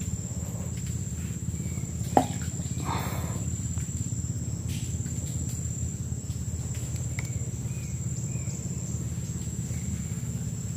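Steady high-pitched insect drone from the swamp vegetation, with a few faint short bird chirps and a low rumble underneath. A single sharp click about two seconds in, likely from the fishing tackle being handled.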